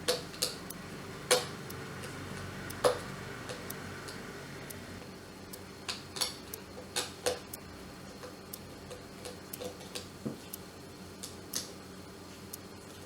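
Irregular light clicks and taps of a screwdriver working screws out of a travel kettle's handle, with a few sharper knocks as the parts are handled.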